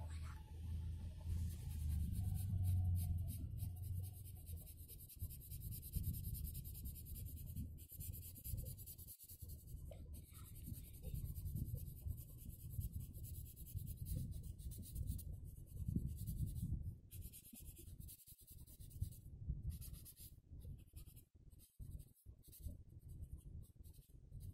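Yellow felt-tip marker scribbling on paper in quick back-and-forth shading strokes, a steady scratching with brief pauses, over a low hum during the first few seconds.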